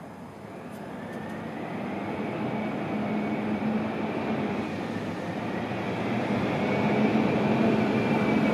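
Engine noise of a passing vehicle, a steady hum with a low drone and a faint high whine that creeps up in pitch, growing louder throughout.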